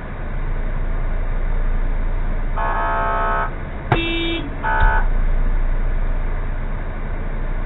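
Car horn honked twice, a blast of about a second and then a short toot, with a brief click and a different short tone between them, over the steady rumble of an idling car.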